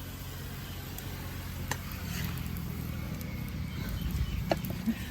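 Mullu murungai adai (coral-tree-leaf and rice batter pancake) frying on a hot pan: a steady sizzle over a low rumble, with a few sharp clicks.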